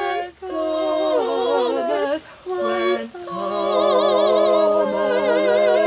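A small vocal group singing in harmony, several voices with vibrato moving together. The phrases break off briefly three times in the first three seconds, then settle into a long held chord.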